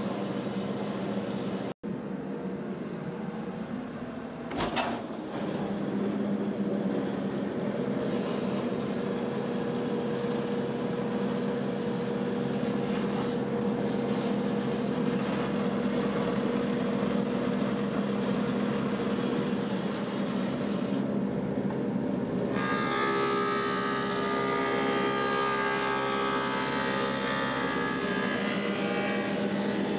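Woodmaster thickness planer with a helical cutterhead running steadily with its dust collector, a steady machine hum with a high whine on top. There is a brief knock about five seconds in. In the last third a board of Osage orange goes through the cutterhead, and the cutting adds a denser sound of several higher tones.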